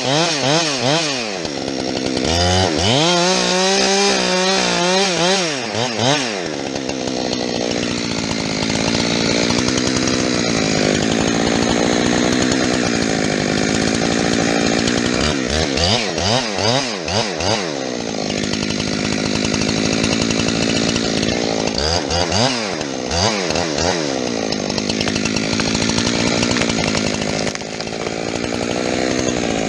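Two-stroke chainsaw running throughout, cutting fir wood with a dull chain. Its pitch swings rapidly up and down in bursts of revving at the start, around a quarter of the way in, and twice more later, with longer steady stretches under load between.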